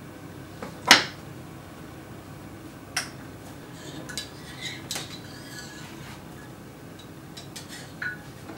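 Kitchenware clinking and knocking as it is handled on a counter and stovetop: one sharp clack about a second in, a smaller knock at about three seconds, then a few light clatters between four and five seconds and again near the end.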